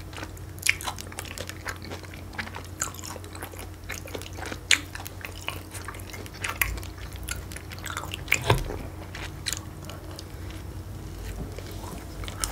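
A person chewing and biting food close to the microphone, with many irregular sharp mouth clicks.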